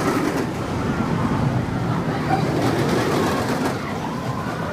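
Inverted steel roller coaster train running along its track, a steady rumble of wheels on the steel rails and structure.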